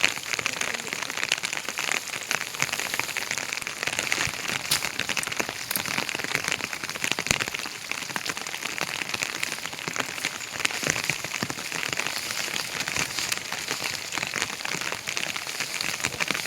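Heavy rain falling steadily: a dense, even patter of many drops hitting surfaces.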